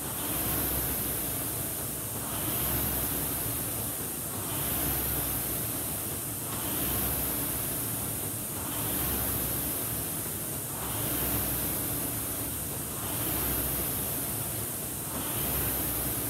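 Concept2 indoor rower's air-resistance flywheel whooshing. It surges with each drive and fades on each recovery, about once every two seconds, at a stroke rate of 28 a minute during a hard ten-stroke piece.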